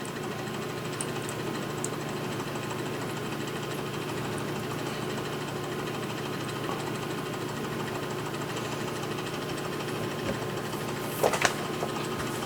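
A steady mechanical hum, even and unchanging, with a couple of brief clicks a little before the end.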